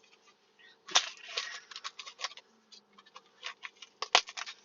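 Packaging of a blind-box mini figure being handled: crinkly rustling with sharp clicks and snaps, loudest about a second in and with one sharp snap near the end.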